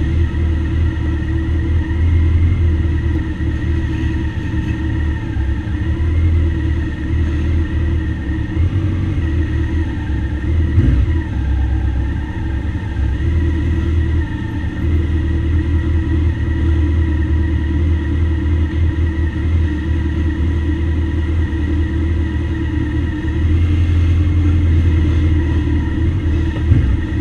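Motorcycle engines idling close by: a steady low rumble.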